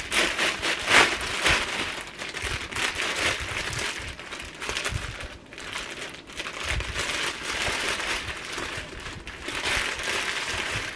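Clear plastic bag crinkling and rustling as a plush backpack is pushed back inside it and the bag is gathered closed at the top. The crinkling is loudest about a second in.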